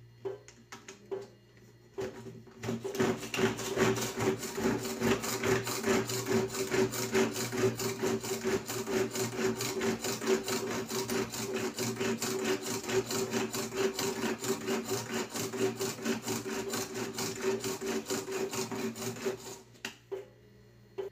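Hand-pull cord mini chopper chopping peeled garlic cloves: rapid, repeated pulls of the cord spin the blades with a steady whirring rattle of the garlic in the bowl. It starts about two seconds in, after a few clicks, and stops near the end.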